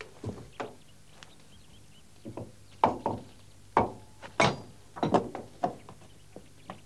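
Containers being lifted and set down on a wooden cupboard shelf: a string of irregular knocks and clunks, the loudest a few in the middle, as the cupboard is rummaged through for food.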